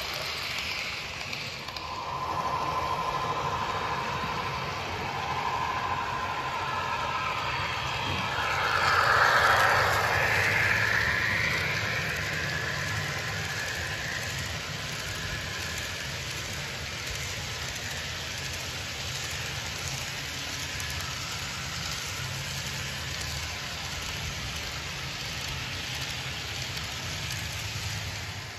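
Model freight train running past on layout track, with a steady low hum of wheels and motor. A held tone comes in about two seconds in, and a louder sound swells and fades about nine to eleven seconds in.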